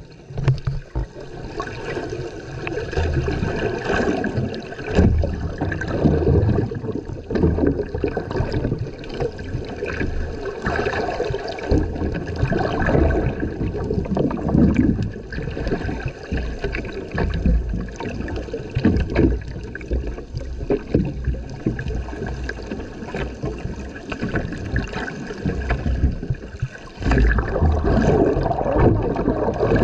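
Water sloshing and gurgling heard underwater: muffled rushing and bubbling that swells and fades unevenly.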